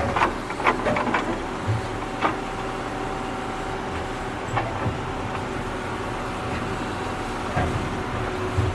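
Small electric motor and gearbox of a wired-remote toy tractor running steadily with a whine while its wheels dig at loose dirt. Sharp clicks and knocks come several times in the first second or so and a few more times later.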